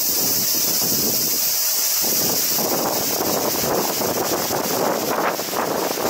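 Strong gusty wind buffeting the microphone and rustling foliage, easing briefly about a second and a half in. A steady high-pitched hiss sits over it.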